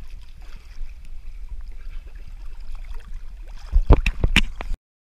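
Sea water sloshing and wind buffeting the microphone of a camera held at the water's surface, a steady low rumble with small splashes. Near the end come a few loud knocks and splashes, then the sound cuts off abruptly.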